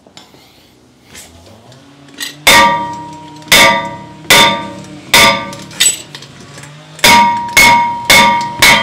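Small sledgehammer striking a front brake rotor that is stuck fast on a Jeep Grand Cherokee's hub, the cast-iron rotor ringing after each blow. About nine sharp blows: the first comes about two and a half seconds in, they fall roughly a second apart, then come faster, about two a second, near the end.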